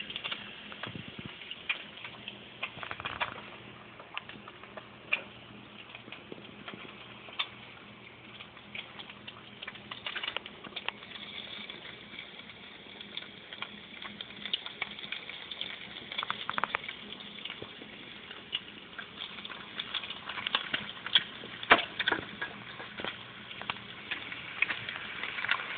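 Bacon strips sizzling in a frying pan: a steady hiss full of small crackles and spitting pops of fat, growing thicker and louder near the end.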